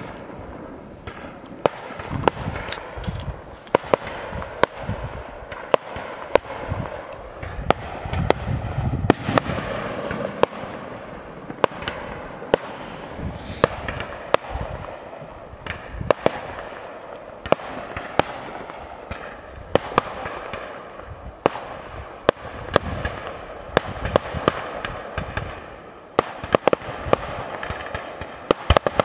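Fireworks display: a dense, continuous crackle of bursting shells with sharp bangs one or two times a second and a low rumble beneath, starting abruptly.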